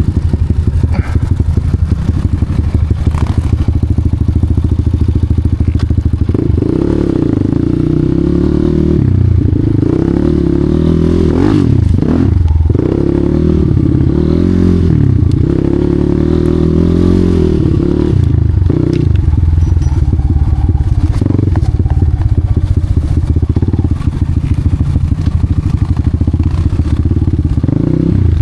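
Enduro dirt bike engine running hard, revving up and down unevenly over and over, with scattered knocks and clatter.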